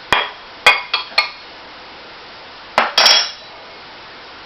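A metal utensil clinking against dishes while food is dished from a crockpot into a small bowl: four quick clinks in the first second or so, then two more a little under three seconds in.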